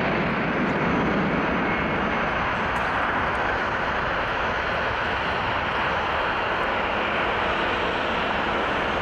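Boeing 737-800 business jet's CFM56-7B turbofans on final approach, a steady jet rumble and hiss that holds at an even level.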